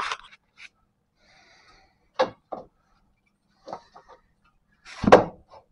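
A few scattered knocks and clunks of the front suspension's lower control arm being handled and lifted into place to rejoin the ball joint, the loudest and deepest one about five seconds in.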